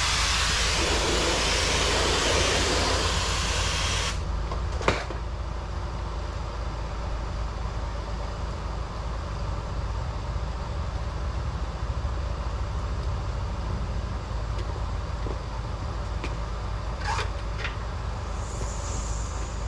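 A pressure-washing rig's engine and pump run steadily while a loud spray hiss cuts off suddenly about four seconds in, as at the release of the spray-gun trigger, followed by a single sharp click; the engine runs on.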